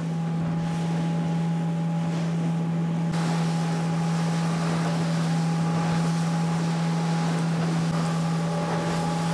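Outboard engine of a fishing boat running at a steady cruising speed, a constant unwavering hum, over the rush of wind and water along the hull.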